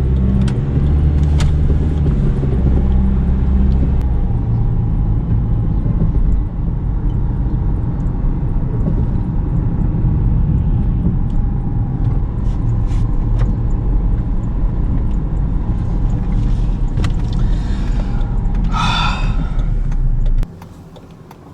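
Steady low rumble of a car's engine and road noise heard from inside the cabin while driving. A brief higher-pitched sound comes near the end, then the rumble cuts off suddenly.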